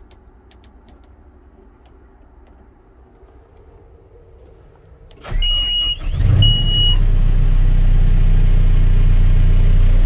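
2014 John Deere 410K backhoe's four-cylinder diesel engine being cranked by the starter about five seconds in, catching within a second and settling into a steady idle. Two short high-pitched beeps sound as it starts.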